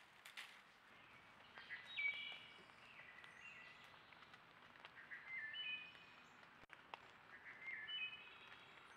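A bird singing a short phrase of clear notes that step between pitches, three times about three seconds apart, over a faint steady hiss.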